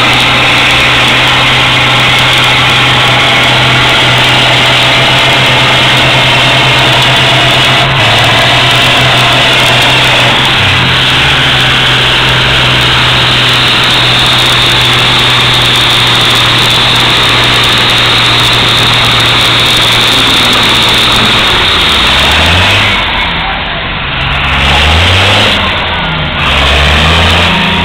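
Case IH 956 XL tractor's six-cylinder diesel running hard under load while pulling a weight-transfer sled. The note holds steady, shifts lower after about ten seconds, and near the end revs up and down several times.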